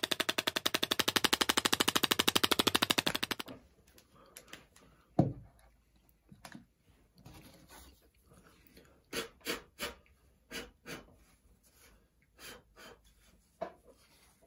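WWScenics Detailer static grass applicator running, a rapid, even clatter of clicks as it shakes 6mm static grass fibres out through its smallest cap. The clatter cuts off suddenly about three and a half seconds in, and a few light knocks and taps follow.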